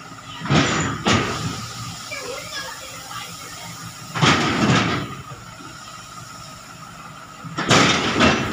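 Paddy grain sliding off the steel bed of a tipped tractor trailer in three rushing surges as the trailer is shaken, over a steady faint hum.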